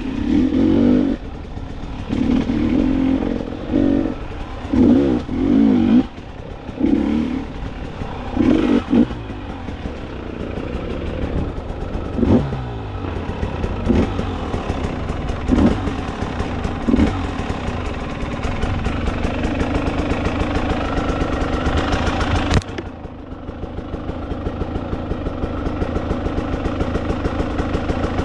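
Enduro dirt bike engine on a rough forest trail, revved in short throttle bursts over the first third. It then runs more steadily under several sharp knocks and clatter. About three-quarters through it drops suddenly to a low, even chug off the throttle.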